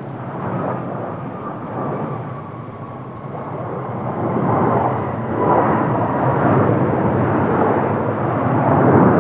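Jet noise from a landing Boeing 737-800's CFM56 turbofans: a broad rumble with a faint, slightly falling whine, growing louder over the last few seconds.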